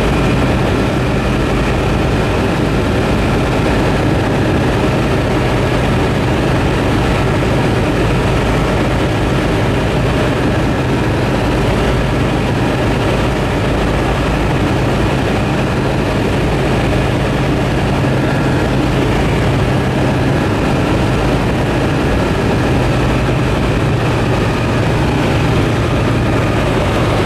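Cabin noise of a Tecnam P2002-JF light aircraft in flight: its Rotax 912 four-cylinder engine and propeller running steadily with a loud, even drone.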